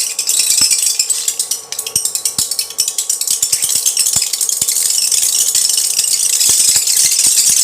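Water beads (polymer gel balls) crackling and popping in a hot pan, a rapid, dense crackle with sharper ticks as the beads rattle against the metal. The crackle eases briefly about two seconds in, then picks back up.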